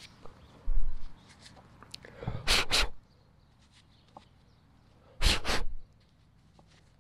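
A person blowing short puffs of air: two quick puffs a little over two seconds in and two more about five seconds in. A low thump sounds about a second in.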